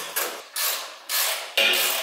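A hand tool worked against metal in repeated rasping strokes, about two to three a second, with a longer stroke near the end.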